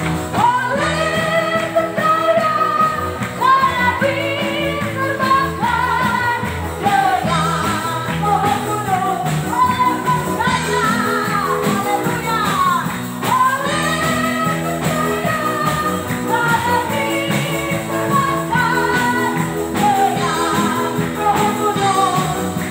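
Women singing a worship song into microphones over amplified instrumental accompaniment with a steady beat.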